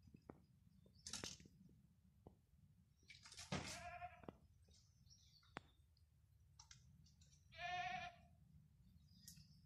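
Two quavering bleats from livestock, the first about three and a half seconds in and the second near the end, with a few faint clicks and taps between them.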